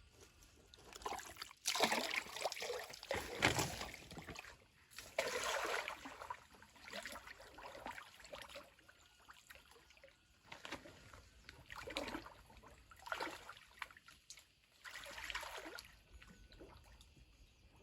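Water sloshing and splashing in irregular bursts every second or two, with some trickling between them; the loudest splashes come in the first few seconds.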